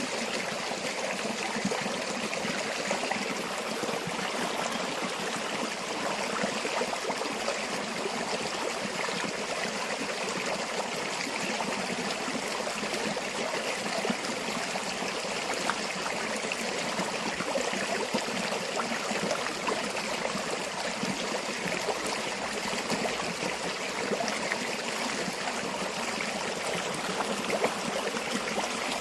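Stream water flowing over rocks in a steady, even rush, with small splashes and gurgles.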